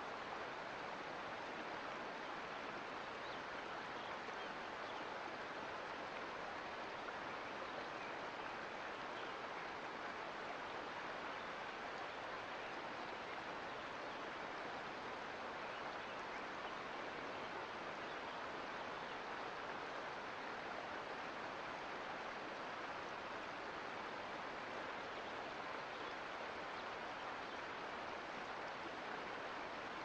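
Creek flowing: a steady, even rush of running water with no breaks or separate events.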